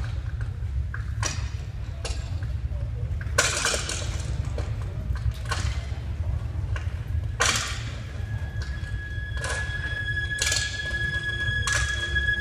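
Opening of a color guard show soundtrack played over a gym sound system: a run of sudden crashes about every one to two seconds, then a sustained high note entering about eight and a half seconds in, over a steady low hum.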